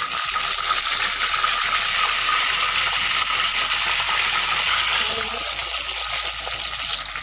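Hot oil sizzling loudly and steadily in an aluminium kadai as fresh curry leaves and green chillies fry in the tempering.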